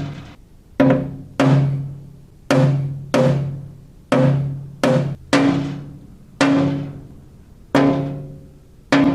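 A small body hammer tapping a car's sheet-metal body panel, about eleven light strikes, each ringing with a low metallic tone that fades within about a second. The taps compare the panel bare-primed and coated with Lizard Skin spray-on sound deadener.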